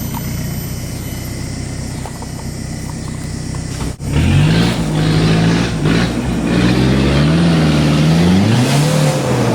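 Four-wheel-drive vehicle's engine running steadily at low revs. About four seconds in, after a sudden break, it gets louder and revs up and down repeatedly.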